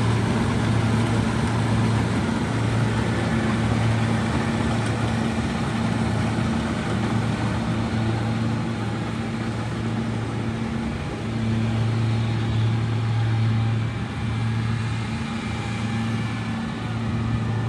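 Kubota DC-70G rice combine harvester running steadily in the field, its engine giving a constant low hum over the rushing noise of the machine working.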